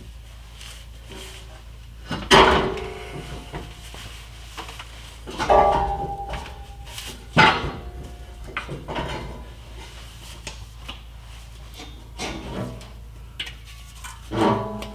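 Steel diesel particulate filter housing and its brackets from a 2017 Ford 6.7 Power Stroke exhaust clunking and scraping as it is shifted by hand off its hangers. Several metal clunks, the loudest about two, five and a half and seven and a half seconds in, one with a short metallic ring, and smaller knocks near the end.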